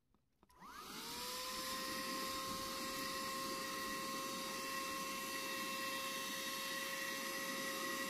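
Bergmann Stunner 150 W handheld car vacuum cleaner switched on with a click about half a second in, its motor spinning up with a quick rising whine. It then runs steadily, a level whine over a loud rush of air.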